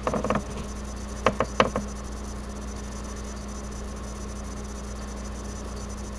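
A few short clicks and taps of trading cards being handled, with three sharp ones about a second and a half in, over a steady electrical hum.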